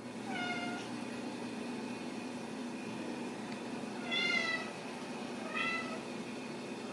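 Ragdoll kitten meowing three times in short high-pitched calls, the second the loudest, over a steady low hum.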